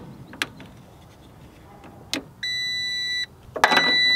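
Portable jump starter sounding its warning beep twice, each a steady high beep of under a second, after a few light clicks. The beeping flags a wrong connection to the van battery: the unit reads 'battery protected, unplug, start over'.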